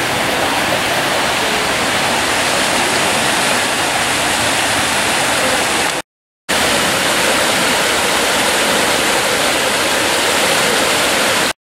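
Fast-moving floodwater rushing in a steady, loud rush as it pours through flooded trees and past a roadside guardrail. The sound breaks off for about half a second roughly six seconds in.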